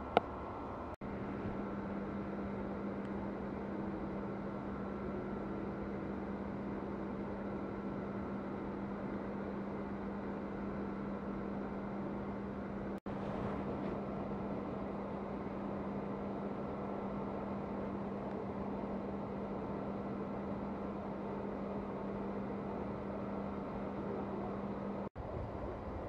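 Steady rushing of flowing stream water around ice and stones, with a low steady hum underneath. A sharp click comes right at the start, and the sound cuts out for an instant three times.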